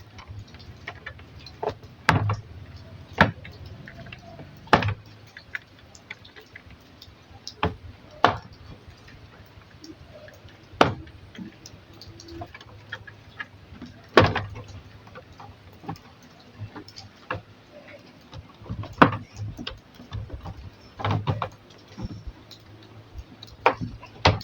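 Plastic case of an LED TV being pried open: its snap-fit clips click and knock apart in sharp, irregular clicks, some a second or two apart.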